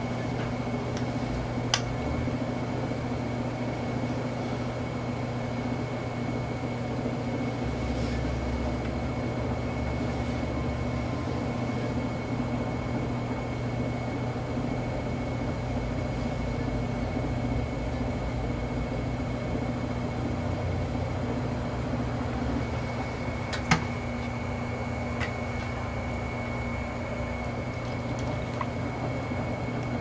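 Electric potter's wheel running steadily, its motor giving a low hum with a thin high whine. One sharp click late on.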